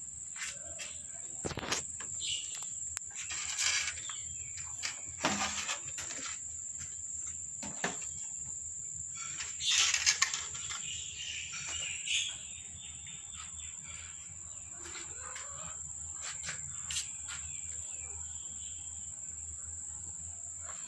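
Cats and kittens eating and jostling on a tiled floor: scattered light clicks and knocks, with a louder rustle about ten seconds in. A steady high-pitched insect drone runs underneath.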